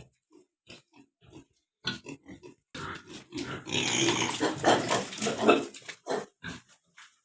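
Pigs making a series of short grunts, then a louder, continuous burst of noisy squealing from about three to six seconds in, then a few more short grunts.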